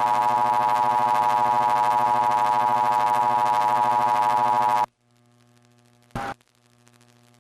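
Steady electronic alert buzz, a single held tone with many overtones, that cuts off suddenly about five seconds in, leaving a faint electrical hum with a brief click near the end.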